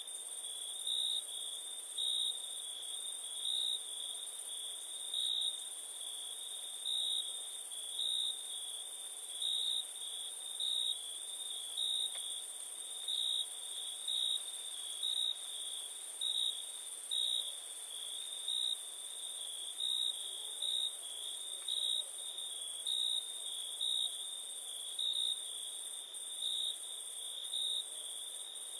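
Crickets chirring in a steady high trill that swells at an even rhythm about once a second, over a constant higher insect hiss.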